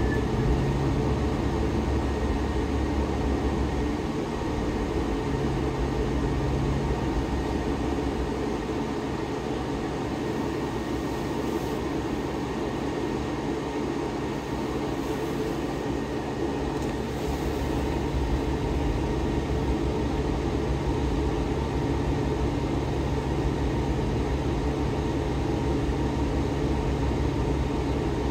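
Diesel bus engine idling while stopped, heard from inside the passenger cabin as a steady low hum.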